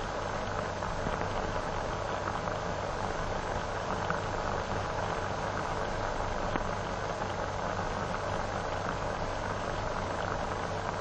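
Steady hiss and low hum of an old optical film soundtrack, with a few faint crackles.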